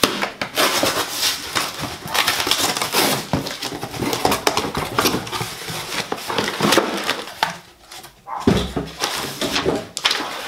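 Cardboard parcel being opened: packing tape ripped and the box flaps pulled apart, then cardboard and paper rustling as the contents and a letter are lifted out.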